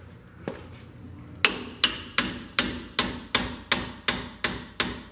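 A hammer striking a steel pickle-fork ball-joint separator wedged into a truck's front ball joint: one strike, then a steady run of about ten ringing metal-on-metal blows, about three a second, driving the fork in to pop the ball joint stud out of the spindle.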